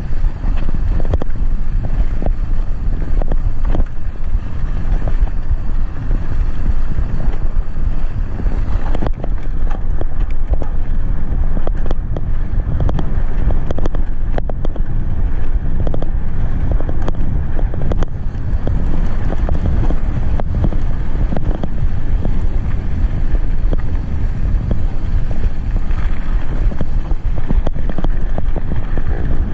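Wind buffeting the microphone of a mountain bike rider's camera, over the rumble of knobby tyres rolling on a dirt road and a constant patter of small knocks and rattles from the bike bouncing over the bumps.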